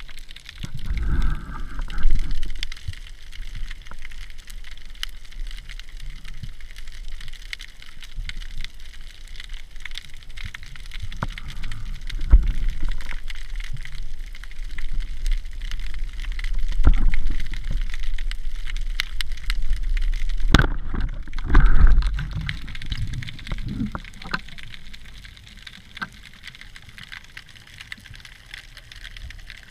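Underwater sound picked up by a camera on a roller speargun: steady crackling and a low rumble of water moving against the housing. About two-thirds of the way in there is a single sharp crack as the roller speargun is fired, followed by a few heavy thumps.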